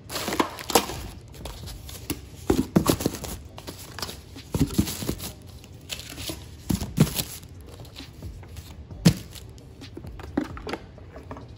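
Plastic packaging wrap crinkling and rustling as packing material is handled inside a pressure cooker's metal inner pot, with irregular knocks and clicks.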